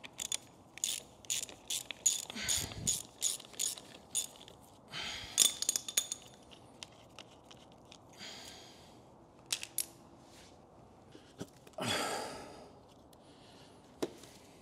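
Hand ratchet wrench clicking in a quick run of strokes as a bolt on the engine is turned, followed by scattered scrapes and clunks of metal parts being handled.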